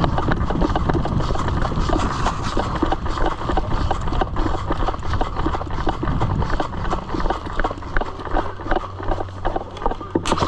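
Quick, irregular footsteps of a person running on dirt.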